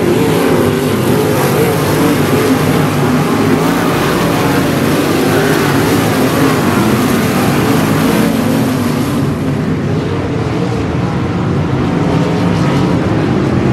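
A pack of 305 sprint cars' V8 engines running hard together, a loud continuous drone of several engines whose pitches rise and fall as the cars go round the dirt oval.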